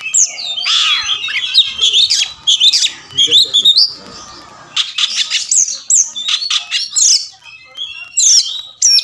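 Oriental magpie-robin singing loudly: a fast, varied run of whistles, slurred glides and harsh chattering notes, with a short pause about four seconds in.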